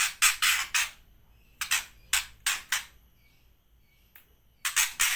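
White-rumped shama giving harsh, rasping barking calls in three quick bursts of several notes each, with short pauses between. This is a bird back to calling after recovering from a cough, flu and hoarseness.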